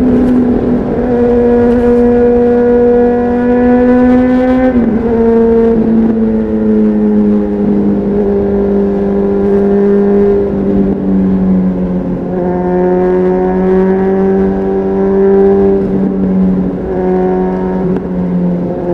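Honda CBR600RR inline-four engine through a Leo Vince aftermarket exhaust, heard on board while riding at steady mid revs. Its pitch drops sharply about five seconds in, then holds steady with a few brief dips later on.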